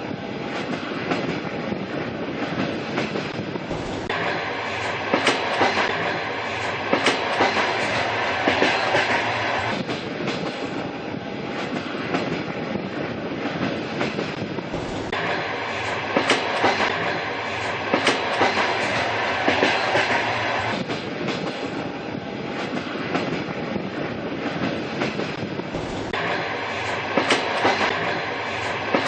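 Train rolling steadily along the track: a continuous rumble with the clickety-clack of wheels over rail joints. The sound shifts between brighter and duller stretches every five or six seconds.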